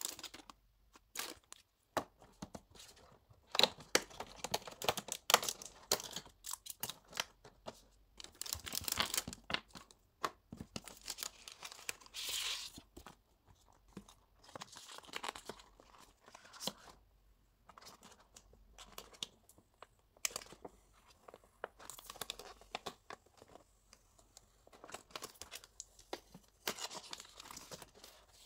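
Paper and card rustling in irregular bursts of handling noise, as hands handle photo cards and open a folded paper envelope.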